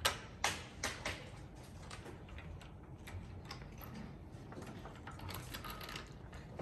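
Wooden knobs being pushed along the grooves of a wooden maze activity panel, clicking and scraping: a few sharp clicks in the first second, then softer, irregular ticking and sliding.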